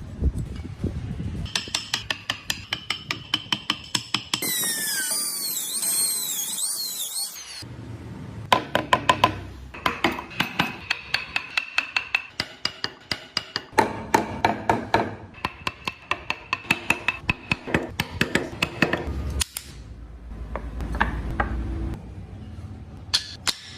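Rapid sharp taps of a mallet or hammer on a carving chisel cutting into wood, in several short stretches that start and stop abruptly. About four seconds in, the taps give way for a few seconds to a high, wavering whine.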